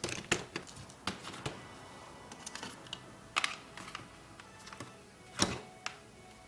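Scattered clicks and knocks of plastic laptop parts being handled as the display assembly is moved and set down, the loudest knock about five and a half seconds in.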